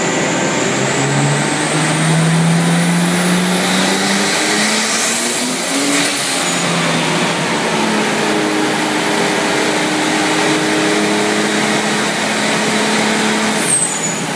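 Nissan Skyline R33 GTS-t's turbocharged RB25DET straight-six running under load on a chassis dyno during tuning. Its pitch rises and falls and holds steady for stretches, over loud roller and tyre noise, with a high whine that climbs over the first few seconds and then sinks slowly. There is a brief drop near the end.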